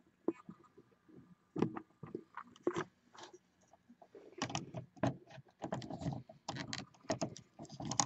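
Hands handling a plastic Mattel WWE action figure on a toy wrestling ring: scattered small plastic clicks and scrapes, sparse at first and busier from about halfway through.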